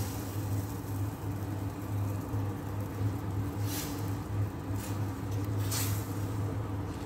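Rice being stirred into a pot of boiling stock with a spatula, with a few short stirring scrapes about four, five and six seconds in, over a steady low hum.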